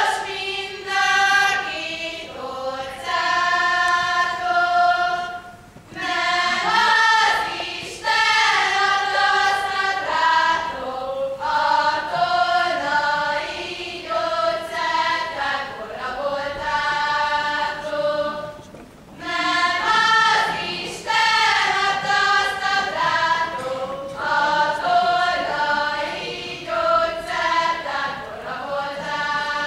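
A group of young women singing a Hungarian folk song together, in sung phrases with short breaks about six and nineteen seconds in.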